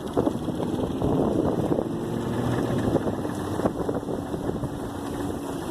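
Wind buffeting the microphone aboard a small fishing boat, over a faint steady hum from the boat's outboard motor.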